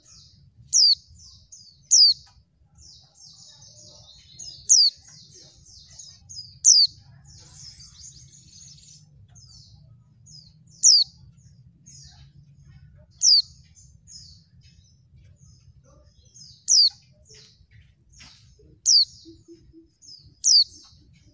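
A white-eye (pleci) giving sharp, high call notes that slur downward, about nine in all, spaced one to four seconds apart, with softer twittering between them. The uploader presents it as a female pleci's call, used to provoke males into answering and singing.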